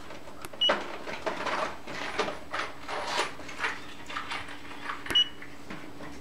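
Handheld Autel scan tool giving two short high beeps as its touchscreen is tapped with a stylus to erase trouble codes: one about a second in, the other near the end with a sharp tap. Irregular soft handling rustles run throughout, and a low steady hum starts a little past halfway.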